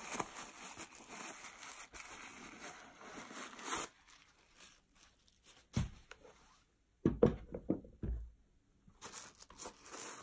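Paper stuffing crinkling and rustling as it is pulled out of a suede shoe, for about four seconds. A few dull knocks follow, and the rustling starts again near the end.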